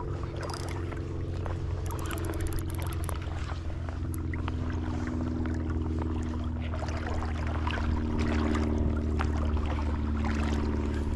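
A steady low motor drone whose pitch drifts slightly lower partway through, with a quick run of fine ticks about two seconds in.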